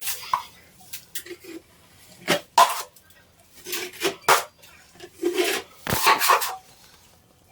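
Steel drywall knife scraping and clinking as joint compound is worked, in short irregular strokes.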